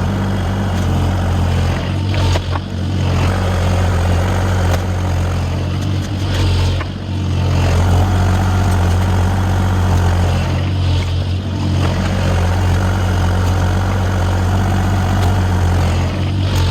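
Mini excavator's diesel engine running steadily throughout, with a noisier layer above it and a few brief knocks.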